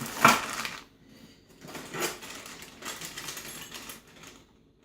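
Clinking and rustling of a plastic bag of small nuts and bolts being handled, with a sharp clatter just after the start and further bursts of handling noise.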